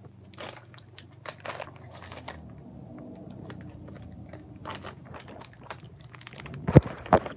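Rubbing, scratching and clicking on a handheld phone's microphone as it is handled, with two sharp knocks near the end.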